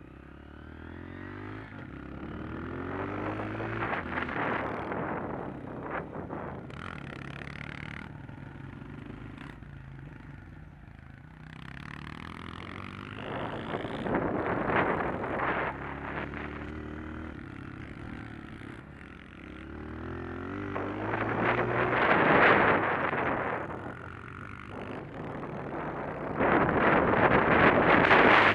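Honda CRF125 pit bike's single-cylinder four-stroke engine revving up through the gears and easing off again several times while riding, with rushes of wind noise on the microphone at each surge of speed.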